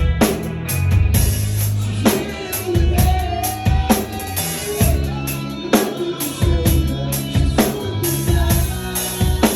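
Drum kit played along to a song: bass drum, snare and cymbal strikes over the backing track's bass and melody.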